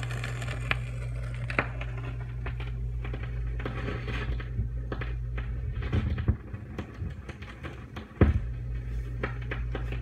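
Surface noise of a 7-inch record playing in the gap between tracks: scattered crackles and pops from the stylus over a steady low hum. The hum dips near the end and comes back with a single thump about eight seconds in.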